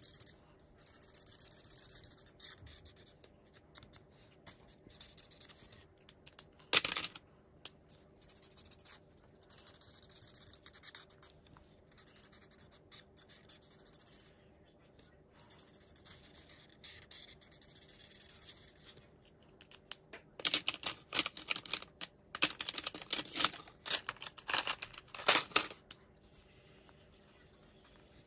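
Felt-tip marker scratching across colouring-book paper in short bursts of back-and-forth strokes, turning to rapid scribbling near the end. One sharp tap partway through.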